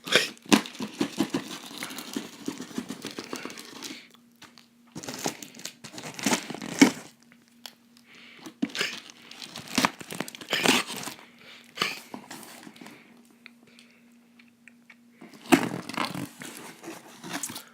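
Plastic wrap and packaging being cut, torn and crumpled while a camera box is opened, in several bursts of crinkling with short pauses between them.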